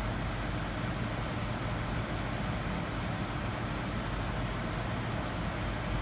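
Steady low rumble and hiss of machinery-like background noise, unchanging throughout.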